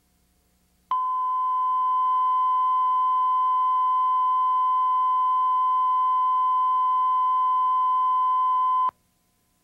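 Steady electronic test tone, one unchanging beep held for about eight seconds. It starts sharply about a second in and cuts off abruptly. This is the line-up tone recorded between spots on a commercial tape.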